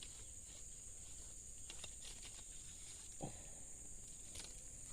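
Steady high-pitched insect buzz in the background, with scattered faint clicks and taps.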